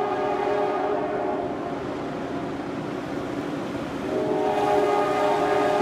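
Horn of a diesel ore train led by a pair of EMD GP38-2 locomotives, blowing for a grade crossing: several notes sounding together in one long blast that fades out about a second and a half in, then a second blast starting about four seconds in.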